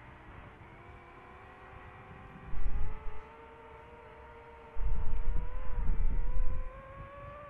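DJI FPV drone's motors and propellers whining in a high-speed pass, a steady pitched whine that slowly rises as it comes in. Two bursts of low wind rumble on the microphone, about two and a half seconds in and from about five to six and a half seconds, are the loudest sounds.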